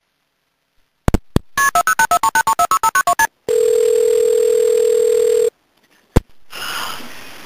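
Telephone call being placed: a couple of clicks, then about a dozen touch-tone (DTMF) digits dialed in quick succession, followed by one ringing tone on the line lasting about two seconds. Near the end another click, and the line opens with a steady hiss as the call connects.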